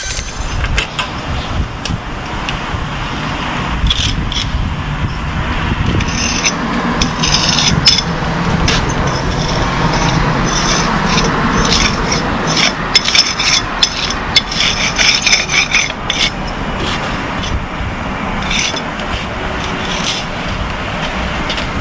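Continuous rasping scrape on a hard surface, with many sharp clicks and knocks scattered through it.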